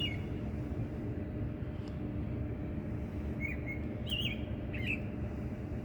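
A bird chirping: short, high chirps, one near the start and then a quick run of three a few seconds in, over a steady low background rumble.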